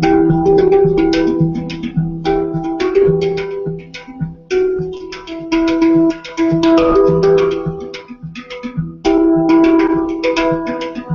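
Handpan played with the hands: a quick stream of struck notes that ring on and overlap, with a couple of brief dips between phrases.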